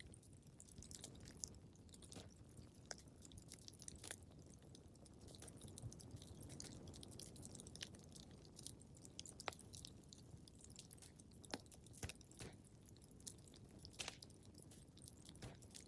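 Faint wood fire crackling in a fireplace: irregular sharp crackles and pops, a few louder than the rest, over a low steady rumble of the flames.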